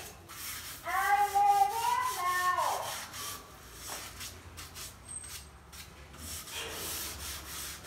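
Hand-held sanding block rubbed in repeated short strokes along the edge of a wooden floorboard, a dry scratchy rasp. A high-pitched voice is heard briefly about a second in.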